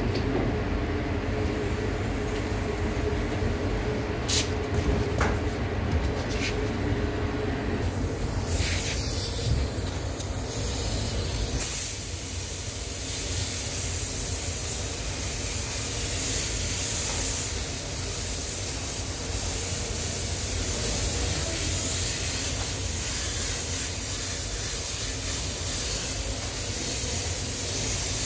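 LPH-80 spray gun hissing with compressed air as it sprays clear coat: short bursts about eight to ten seconds in, then a steady spray from about twelve seconds on. A steady low rumble runs underneath.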